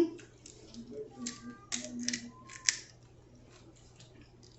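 Snow crab leg shells being cracked and snapped apart by hand, giving several sharp cracks and crackles.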